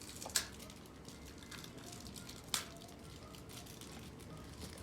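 Two short, sharp clicks about two seconds apart over quiet room noise.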